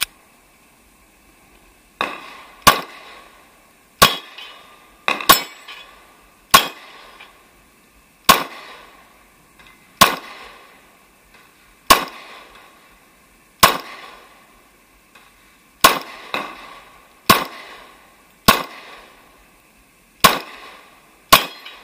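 Glock 23 pistol in .40 S&W firing a string of about sixteen single shots at an unhurried pace, one to two seconds apart, starting about two seconds in.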